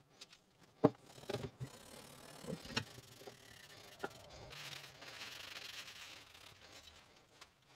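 Light rubbing and scraping on the metal head of a combi tool as it is cleaned, with a few sharp clicks and knocks; a steadier stretch of rubbing comes in the second half.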